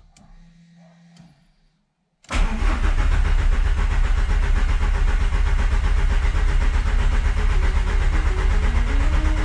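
VW Polo's 1.9 TDI diesel engine starts abruptly about two seconds in and then runs loudly with a fast, even beat. Faint clicks and a low hum come before it.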